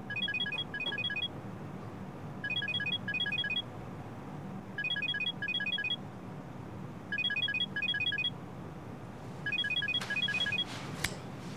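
An electronic telephone ringtone rings five times, each ring a pair of short rapid warbling trills, about every two and a half seconds. A few clicks follow near the end as the phone is picked up.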